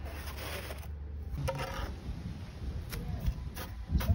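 Metal hand trowel digging and scraping into sandy soil, giving gritty scrapes and a few sharp clicks, the first about one and a half seconds in and several more near the end, over a low steady rumble at first.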